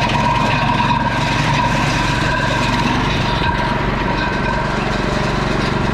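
Petrol-engine wood chipper running steadily, with a constant mechanical whine.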